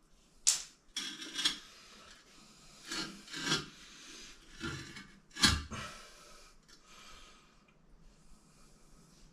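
Short scrapes and knocks of a broken ceramic toilet pan being handled and worked against its cement bedding. The loudest knock comes about five and a half seconds in, followed by fainter rubbing.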